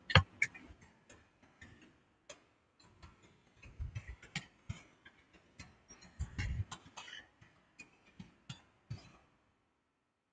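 Irregular clicks and taps with a few dull thumps, from hands handling objects close to the microphone; the sound stops abruptly about nine seconds in.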